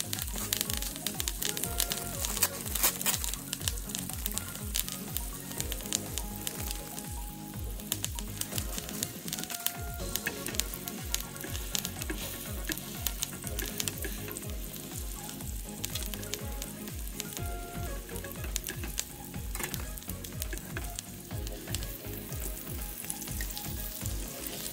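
Butter frying in a hot pan around a strip steak with rosemary and thyme: a steady sizzle with dense crackling.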